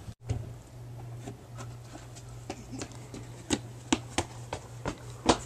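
Footsteps of someone running on hard ground, about two and a half a second, over a low steady hum.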